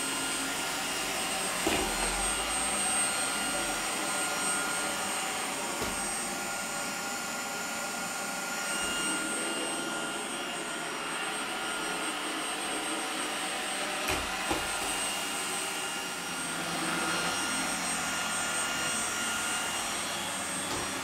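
iRobot Roomba 980 robot vacuum running as it cleans: a steady whir of its motor and brushes with thin high whining tones, and a few brief knocks.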